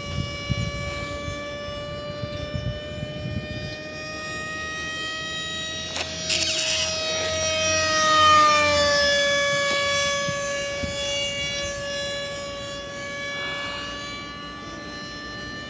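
RC model Sukhoi Su-30 jet flying past with a steady high whine. The whine swells to its loudest about eight seconds in as the jet passes overhead, then drops in pitch as it flies away.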